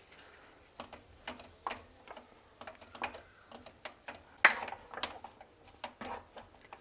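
Wooden spatula knocking and scraping against a non-stick frying pan while stirring thick semolina dough, in irregular clicks a few times a second. The loudest knock comes about four and a half seconds in.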